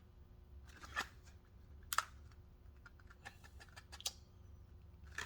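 Light clicks and taps from a pair of internal snap ring pliers being handled: a few separate sharp clicks roughly a second apart, with small ticks between them, over a faint low hum.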